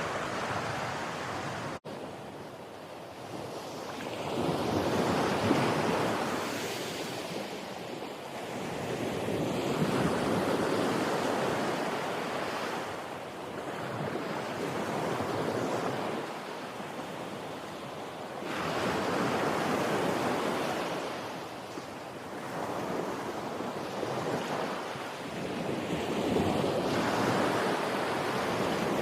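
Ocean waves washing in, a steady rushing that swells and fades in slow surges every several seconds, with a momentary break in the sound about two seconds in.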